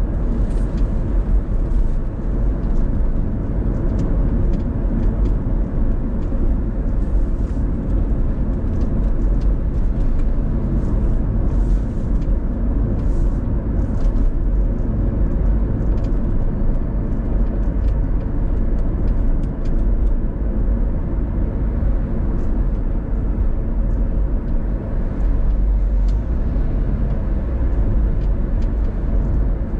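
Car driving along a city street: a steady low rumble of road and engine noise, with a few faint ticks now and then.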